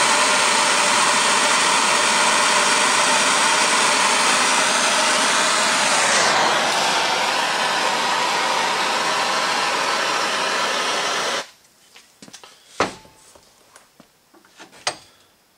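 Handheld gas soldering torch hissing steadily as it heats a copper pipe joint for soldering, the tone changing about six seconds in. The flame is shut off abruptly near the end, followed by a few light knocks.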